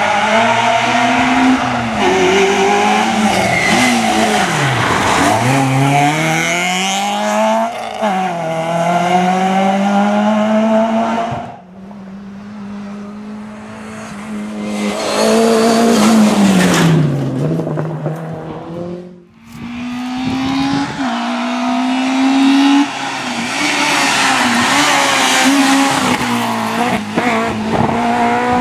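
Rally cars driven hard on a tarmac stage, one after another: engines revving high, dropping at each gear change or lift-off, then climbing again. The sound breaks off abruptly twice as one car gives way to the next.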